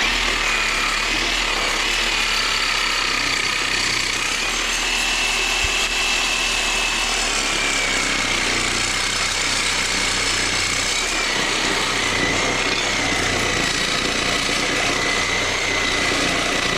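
Reciprocating saw with a Diablo blade running steadily, cutting through an AC condenser coil of copper tubing and aluminum fins. A high motor whine drifts slightly in pitch over the cutting noise, starting abruptly. The blade is vibrating and not cutting well.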